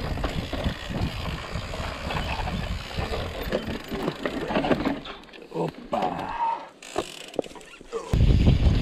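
Mountain bike running fast down a rough dirt singletrack: tyre noise on the dirt with the bike rattling and clattering over bumps. Wind buffeting the handlebar-mounted camera's microphone turns loud about eight seconds in.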